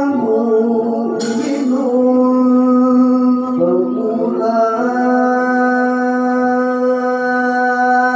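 A man's voice in melodic Qur'an recitation (tilawah) into a handheld microphone. Ornamented runs in the first seconds settle into one long held note.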